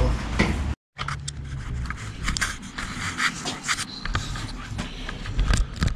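Handling noise from a handheld camera being moved about and repositioned: scattered small clicks, knocks and scraping, after a brief cut in the sound about a second in.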